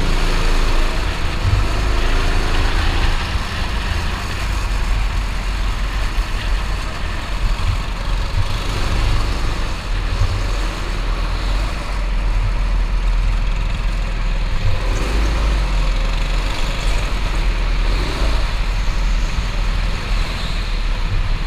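Go-kart engine running under throttle with a constant low rumble, its pitch rising and falling through the corners.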